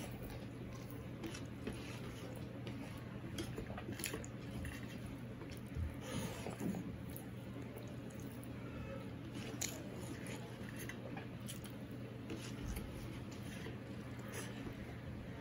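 Hand-eating sounds: fingers squishing and kneading mashed food against a steel plate, with soft chewing and mouth smacks. Scattered small clicks over a low steady hum.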